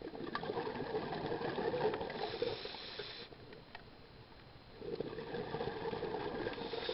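Scuba diver breathing through a regulator underwater: two long exhalations of bubbling noise, each about three seconds, with a pause of about a second and a half between them.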